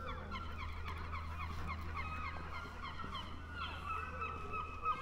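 A flock of birds calling: many short calls overlapping one another without a break.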